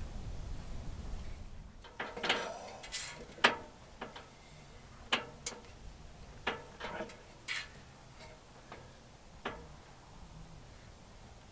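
A low steady rumble that stops about two seconds in, then a dozen or so irregular metallic clicks and clanks, some ringing briefly, from stainless chimney pipe sections being handled and fitted together at the top of the ladder.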